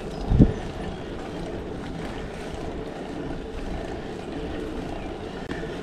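Steady rush of wind and road noise on the microphone of a moving bicycle, with one low thump about half a second in.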